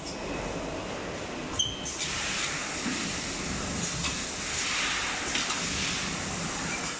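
Flatbed screen printing machine running, its print carriage sliding with a steady mechanical clatter and hiss. A sharp click comes about one and a half seconds in.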